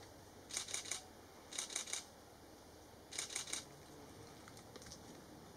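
Camera shutter firing in three quick bursts of about four frames each, in continuous shooting mode.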